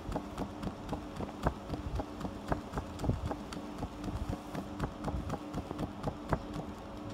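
CNC laser cutting machine at work on leather: a steady low machine hum under a continual run of irregular sharp ticks and clicks.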